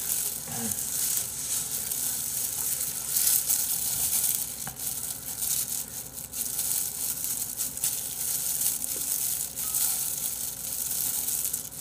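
Disposable plastic gloves crinkling and rustling as hands squeeze and knead a seaweed rice ball, a steady fluttering hiss.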